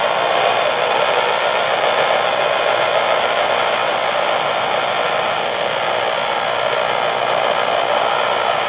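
Steady radio static: an even hiss with no voice or tones, as from a weak or noisy radio reception.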